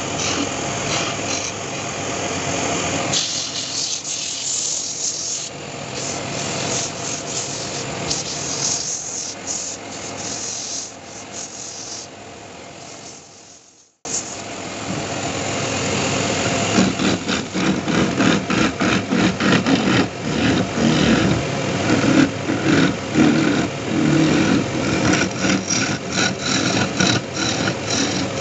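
Wood lathe spinning a wooden sofa leg while a hand-held turning chisel cuts into it: a rough, rasping scrape over the hum of the lathe's motor. The sound fades out about halfway through and stops abruptly, then starts again louder and choppier as the gouge bites in repeated short strokes.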